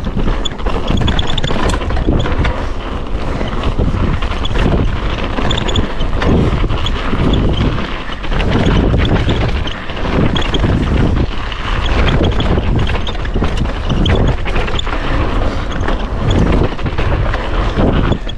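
Mountain bike riding down a frosty gravel trail: wind buffeting the camera microphone over tyres crunching on loose gravel. Frequent short clicks and knocks as the bike rattles over the bumps.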